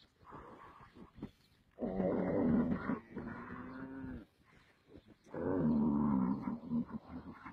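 Cattle bellowing: two long, loud calls, each lasting about two seconds, the second starting about a second after the first ends.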